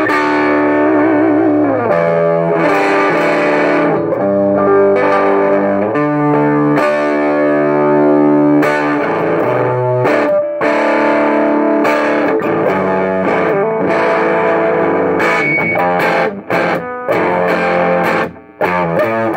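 Electric guitar, a Gibson Les Paul Traditional, played through a KNOX Trem-tone combo amp that has just been recapped and grounded to cure its hum; chords and single notes ring out. There is a bent, wavering note about a second in and short choppy strums near the end.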